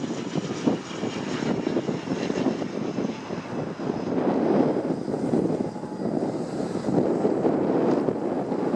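ATR 72-600 turboprop's two Pratt & Whitney PW127 engines and propellers running as it comes in to land, a dense rumbling noise with a faint high whine that fades about halfway through, mixed with gusty strong wind.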